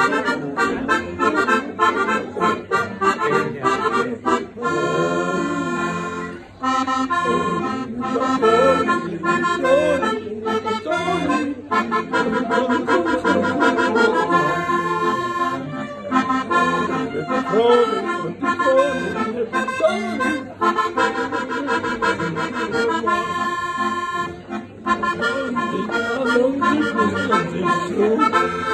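Piano accordion playing a tune, melody over bass and chords, with two short breaks in the music.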